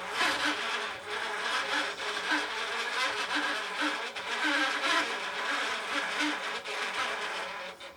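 A low-end Super 8 film viewer running with film going through it, its mechanism making a loud, buzzing rattle that fades near the end.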